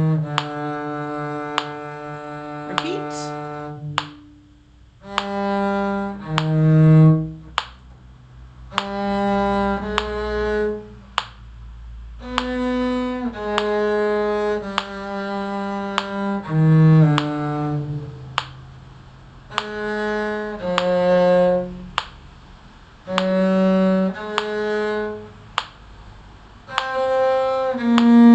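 Muted (con sordino) bowed string instrument playing a slow melody of separate held notes, about a second each, in short phrases with brief pauses between them.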